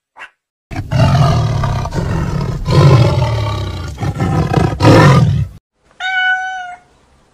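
A big cat roaring: several long, loud, deep roars in a row. A short, even-pitched higher call follows near the end.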